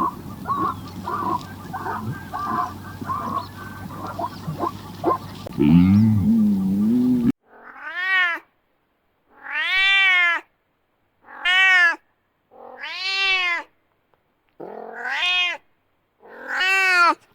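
A cow moos once over busy farmyard noise. Then six separate kitten meows follow on a clean background, each under a second long and rising then falling in pitch.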